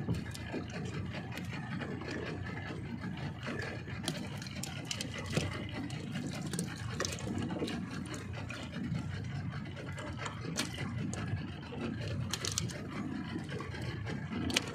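Suzuki outboard motor running steadily at low speed, with scattered small clicks and rattles from fishing hooks and line being handled.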